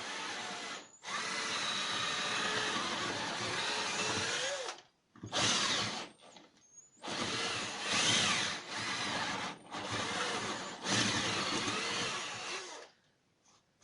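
Electric drill boring into a wooden floorboard, widening a pilot hole so a screw head can sit below the surface to stop the floor squeaking. It runs in about seven bursts of one to four seconds with short pauses, its speed rising and falling with the trigger.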